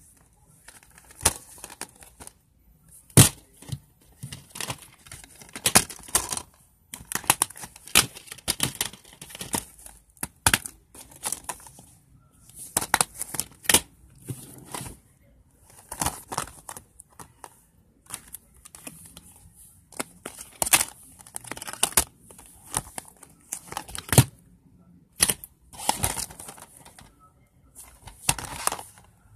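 Plastic DVD cases being handled and shuffled: a run of irregular sharp clicks and clacks mixed with short rustling and crinkling.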